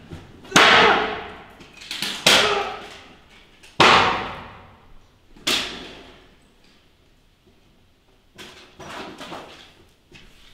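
A series of loud bangs, five in the first six seconds, each ringing out in a long echoing tail, then a few quieter knocks later on.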